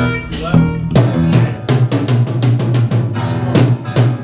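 A rock band playing live, led by a Yamaha drum kit: a busy beat of kick, snare and rim hits, about five or six strikes a second, over low bass guitar notes.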